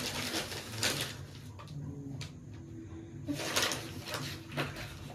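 Paper rustling and crinkling in short bursts as newspaper gift wrapping and a paper sheet are handled on a picture frame being unwrapped.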